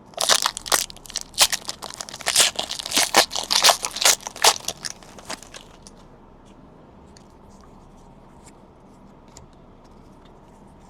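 Foil trading-card pack wrapper crinkling and being torn open, a dense run of crackles lasting about five seconds. After that only faint clicks, as the cards are handled.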